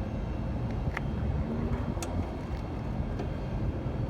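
Car jack being worked to lift the car: a few sharp clicks about a second apart over a steady low rumble.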